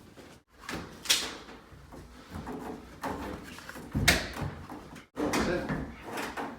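Irregular knocks, bumps and scraping rustles from hands working behind a washing machine as it is disconnected, with two sharper knocks about a second in and about four seconds in.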